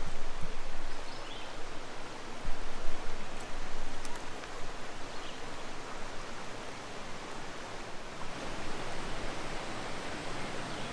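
Steady rush of river water spilling over a dam, an even hiss without pauses, with a few louder low rumbles in the first four seconds.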